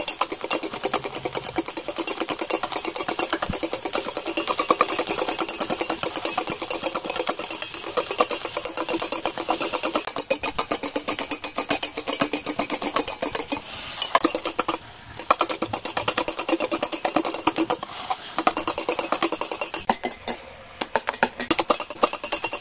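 Electric hand mixer whirring as it whips egg whites into meringue, its beaters ticking rapidly against the bowl. It cuts out briefly a few times in the second half.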